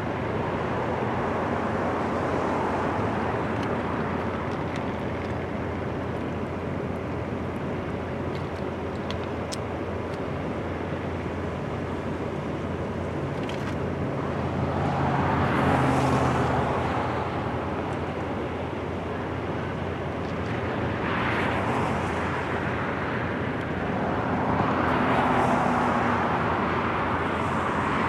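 Steady highway traffic noise, with vehicles passing that swell and fade, louder about halfway through and twice more near the end.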